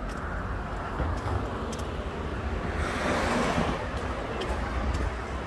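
Street ambience with a car passing on the road: its tyre noise swells and fades about halfway through, over a low rumble of wind on the microphone.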